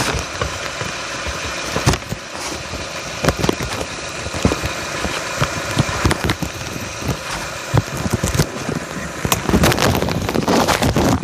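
Running noise of a 2011 Chevrolet Cruze picked up at the front right strut, with irregular sharp metallic clicks and knocks scattered through it. This is the intermittent clicking and rattling from the passenger-front corner, of unknown cause. The noise grows louder in the last second or two.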